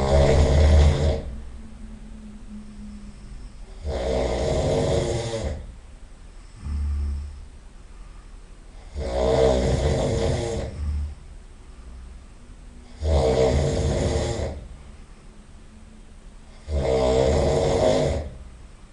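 A person snoring loudly, five rattling snores about four seconds apart, each lasting a second or so, with quieter breaths in between.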